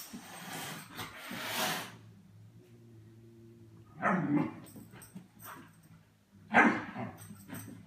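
German Shepherd puppy barking, two single barks about four and six and a half seconds in, the second louder. Two breathy hissing noises come in the first two seconds.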